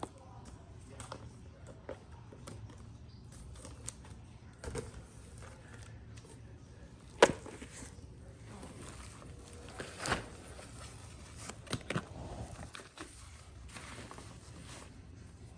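Small objects being handled and packed: scattered clicks, taps and rustling, with a sharp click about seven seconds in and a few more near the end.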